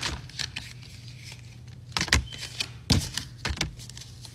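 Tarot cards being shuffled and handled: a string of crisp card snaps and taps, a cluster near the start and more around two to three and a half seconds in.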